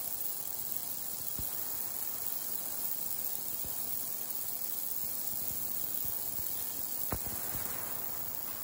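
VEVOR ultrasonic cleaner running, a steady hiss from cavitation in the water bath. A single sharp click sounds near the end as the stainless steel lid is set on the tank.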